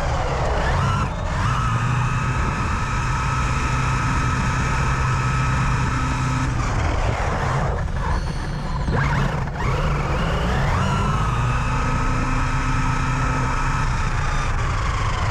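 Electric RC car's high-revving brushless motor running hard, a steady high whine. It drops in pitch at the start, breaks up in the middle, climbs back up and drops away again near the end as the throttle and speed change.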